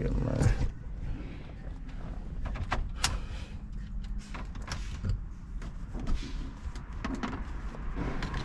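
Car engine idling with a low, steady rumble, with scattered sharp clicks and knocks over it.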